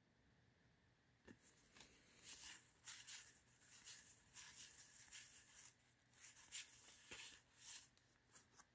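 Faint, irregular rustling and sliding of 1990 Fleer basketball cards being handled and flipped through by hand, beginning about a second in.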